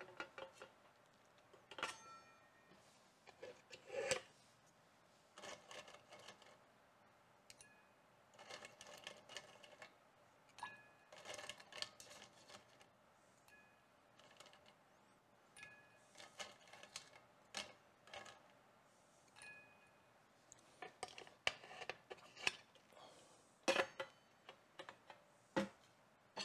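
Ice cubes picked by hand from a stainless steel ice bucket and dropped into a glass tumbler: scattered clinks and knocks, some with a short ringing tone.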